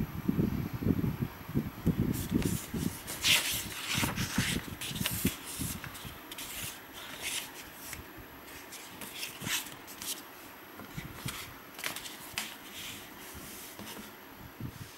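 Paper documents being handled: stiff pages rustling and crackling in many short bursts. Dull bumps of handling noise come in the first few seconds.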